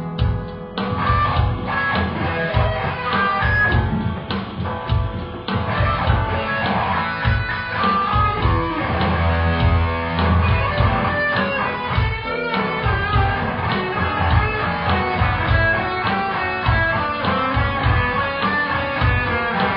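Electric guitar played through effects pedals and an amplifier, a continuous blues jam with a heavy low end underneath.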